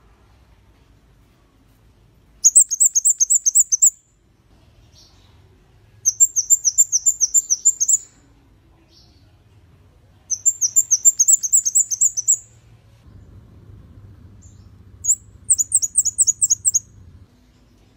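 Red-headed flowerpecker (kemade kepala merah) singing: four bursts of rapid, very high-pitched repeated notes, about five a second, each burst lasting one and a half to two seconds.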